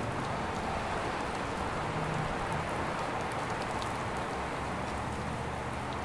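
Steady rain falling: an even, continuous hiss with a low rumble beneath it.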